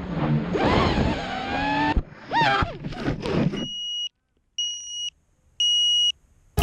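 FPV racing quadcopter's motors whining, the pitch swooping up and down with the throttle, cutting out about three and a half seconds in as the quad crashes into grass. Then the quad's onboard buzzer gives three evenly spaced short beeps, which the pilot suggests can be a failsafe (lost radio link).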